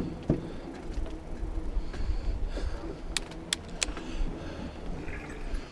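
Mountain bike rolling along a gravel rail trail, a steady low rumble of tyres and wind on the microphone, with three sharp clicks a little past the middle.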